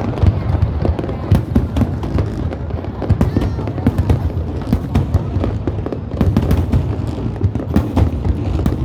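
Fireworks display: a dense, continuous barrage of deep thuds and sharp cracks, many bursts overlapping without a pause.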